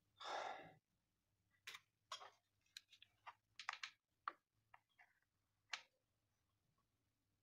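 Faint handling sounds on a workbench: a brief rustle as a circuit board is set down, then scattered light clicks and taps as a soldering iron and a reel of solder wire are picked up.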